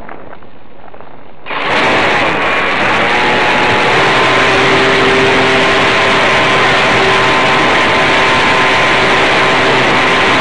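Electric motor and propeller of an Easy Pigeon model aeroplane running steadily in flight, a steady whine under loud air rush on the onboard camera's microphone. About a second and a half in, the sound jumps abruptly from a quieter wind hiss to this loud, fuller noise.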